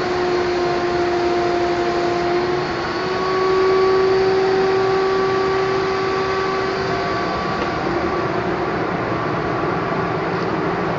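Spray gun spraying clearcoat: a steady rush of compressed air through the air cap, with a whistling tone that wavers and breaks briefly twice.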